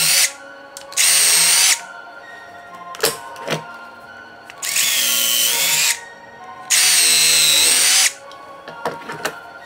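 Milwaukee cordless drill running in short bursts while making the screw holes for a mortise lock in a door edge: a brief whir right at the start, then three runs of about a second each.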